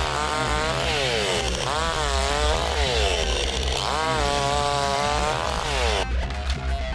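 Huter BS-62 two-stroke petrol chainsaw cutting through a fallen log, its engine pitch rising and falling repeatedly as the chain bites into the wood. The sound changes about six seconds in as the cut goes through.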